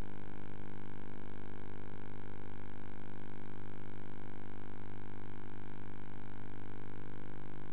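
Helicopter's steady drone, a constant hum made of many evenly stacked pitches that does not change.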